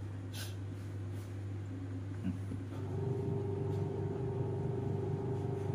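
Steady low mechanical hum; about three seconds in, a higher droning tone joins and holds one steady pitch.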